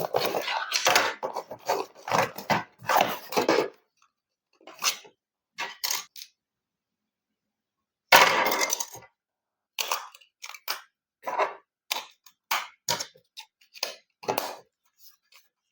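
Crinkling, crunching and clattering as plastic packaging and toy parts are handled, in short irregular bursts that cut off abruptly into silence several times.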